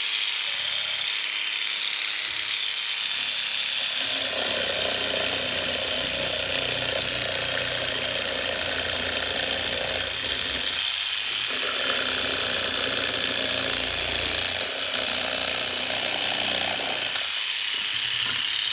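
Dremel jig saw attachment driven by an old Sears Craftsman rotary tool, its blade running with a fast rattling action. From about four seconds in it is cutting into quarter-inch oak plywood, with a brief let-up near the middle, and it stops cutting shortly before the end while the tool keeps running.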